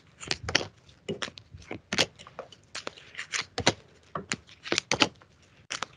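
Tarot cards being shuffled and handled: a quick, irregular run of crisp snaps and clicks.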